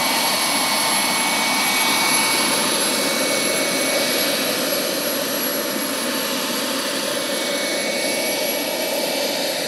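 Turbine-powered Vario XLC carrier model helicopter hovering: a steady high turbine whine over the rush of the spinning rotor.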